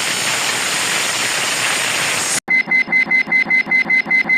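Sound effects: a steady hiss of noise that cuts off suddenly about two seconds in, followed by rapid electronic alarm-style beeping at about four beeps a second.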